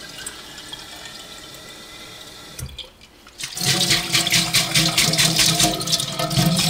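Tap water running while sprouts are rinsed out: a soft flow that breaks off briefly about three seconds in, then runs louder and fuller with a steady ringing tone in it.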